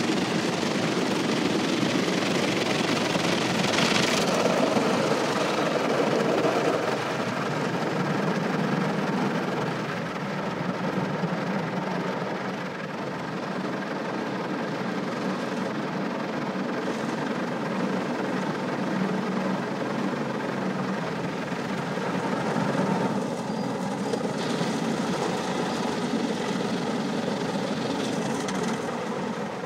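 Automatic car wash heard from inside the car: the steady whirring drone of the wash machinery with water rushing over the body and windshield, and a brief sharper hiss of spray about four seconds in.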